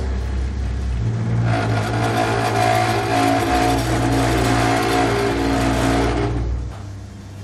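Rim-straightening machine running as it works a bent 14-inch steel wheel rim under its pressing roller. A steady low hum swells about a second in to a louder whirring whine with a rough rubbing noise, then drops back near the end.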